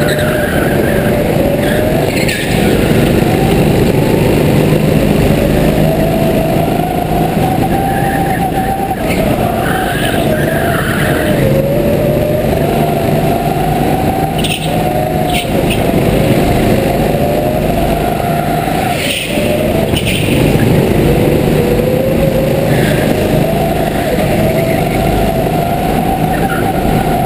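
Onboard sound of a go-kart engine running hard, its pitch climbing on each straight and dropping back into the corners, over and over. Brief tyre squeals come now and then in the turns.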